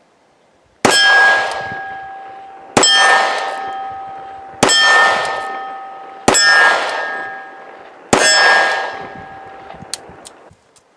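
Five shots from a Taurus 85 Ultra Lite .38 Special revolver, about two seconds apart. Each hit sets a steel target plate ringing with a clear bell-like tone that fades until the next shot; the last ring dies away near the end.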